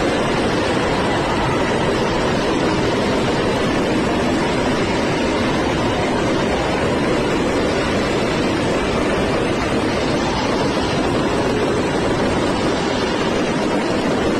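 Large stadium crowd cheering in a steady, unbroken roar.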